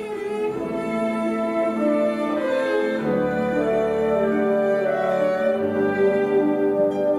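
Orchestral music for a ballet adagio: bowed strings, violins over cellos, playing a slow melody in long held notes.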